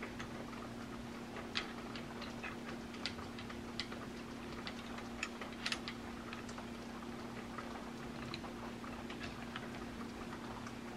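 Light, irregular metal clicks and ticks of a small wrench working the steel gas cylinder plug (lock screw) at the muzzle end of an M1 Garand, over a low steady hum.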